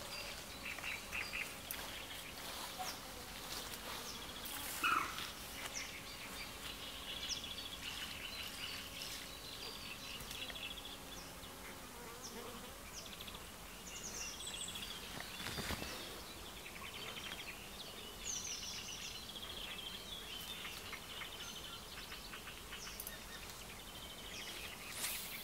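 Outdoor ambience of small birds chirping and calling again and again, with a faint steady buzz over the first half and one sharp knock about two-thirds of the way in.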